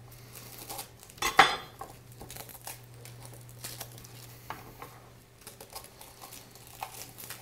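A kitchen knife knocking and scraping on a wooden chopping board while cutting into a garlic bulb: one sharp knock about a second and a half in, then a few lighter taps. A steady low hum runs underneath.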